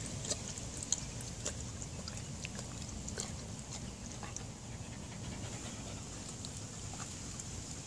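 Border collies panting after drinking, with a few scattered soft clicks over a steady low background hum.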